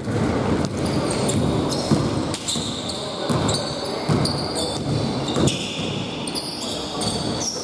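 A basketball dribbled on a hardwood court, with repeated bounces, players' running footsteps and short high sneaker squeaks on the floor.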